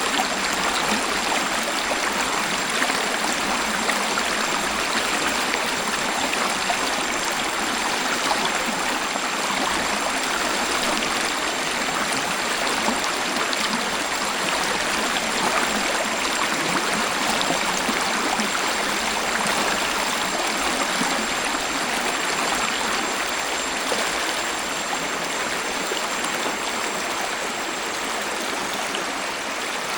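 Water of a waterfall rushing and splashing in a steady, unbroken wash of noise, easing slightly near the end. A faint thin high tone runs steadily underneath.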